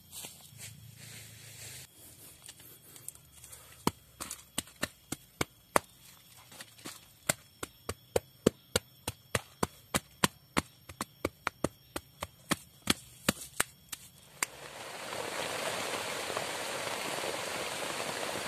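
Repeated sharp chopping strikes, about two a second, that stop about fourteen seconds in. A steady rush of heavy rain then takes over.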